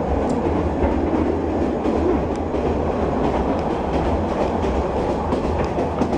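Train running along the track: a steady, unbroken rumble of wheels on rails, with a few faint ticks.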